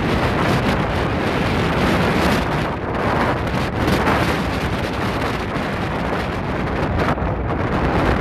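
V-22 Osprey tiltrotor hovering low in helicopter mode, its rotors and engines running loud and steady, with the rotor downwash blasting wind across the microphone.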